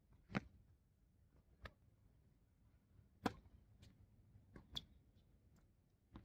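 Tennis ball impacts on an outdoor hard court: sharp single pops of racket strikes and ball bounces, about six in all. The two loudest come about three seconds apart and fainter ones fall between them.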